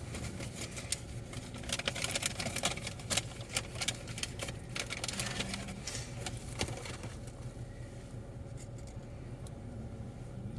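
Takeout food packaging, a sandwich wrapper and bag, crinkling and rustling as the sandwich is unwrapped: a run of crackles that dies down after about seven seconds.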